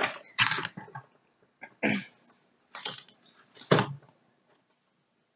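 A handful of short rustles and crinkles of plastic snack wrapping being handled, bunched in the first four seconds.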